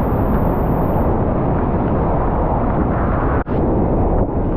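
Loud, steady roar of Niagara Falls' water plunging and crashing close by, a dense low rush with a brief gap about three and a half seconds in.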